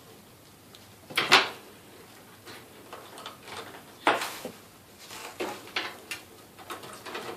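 Power supply cable connectors being pushed onto two hard drives inside a desktop computer case: a series of sharp plastic clicks and knocks, loudest a little over a second in and again about four seconds in.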